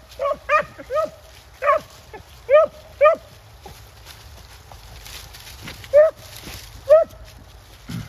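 Hunting dog giving short, high yelping barks: several in quick succession, then a pause of about three seconds, then two more about a second apart.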